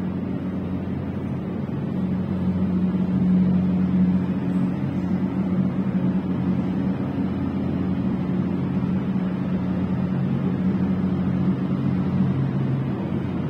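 Steady low machine drone with a few held low tones and no breaks.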